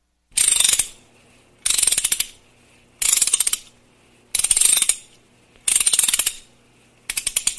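Rapid ratchet-like clicking in six short bursts, each about half a second long and about a second and a half apart, the last burst broken into more separate clicks near the end.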